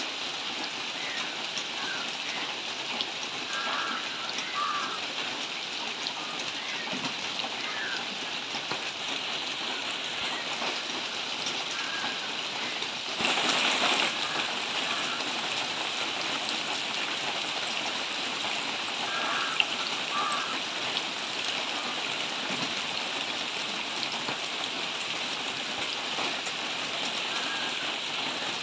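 Steady rain falling on dense foliage, an even hiss, with a few faint short chirps through it. About thirteen seconds in it turns louder for a moment, then settles a little louder than before.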